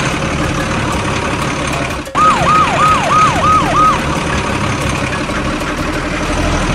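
Steady machine noise, joined about two seconds in by a short siren-like alarm of six quick falling tones, roughly three a second.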